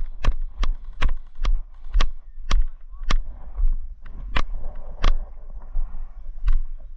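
A series of sharp clicks, each with a dull thump, about two a second at first, then slowing and coming further apart.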